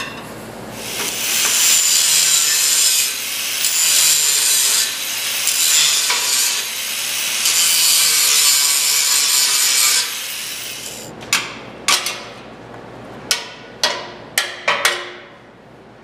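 Handheld angle grinder cutting through a steel bracket on a golf-cart frame, grinding steadily for about ten seconds. Near the end come several sharp knocks of a hammer striking metal.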